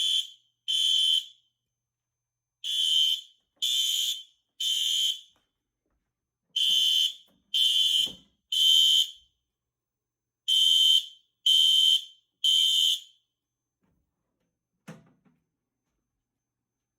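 Fire alarm horns sounding the temporal code 3 evacuation signal: high-pitched beeps in groups of three, each about half a second, with a longer pause between groups. After the fourth group they stop about 13 seconds in, and a single knock follows about two seconds later.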